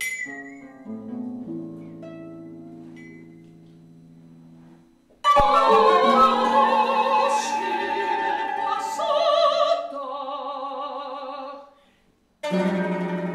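Quiet plucked strings from a small ensemble of harp, guitar and mandolin for about five seconds. Then a mezzo-soprano sings an operatic line in French with vibrato over the accompaniment. She breaks off briefly near the end, then sings again.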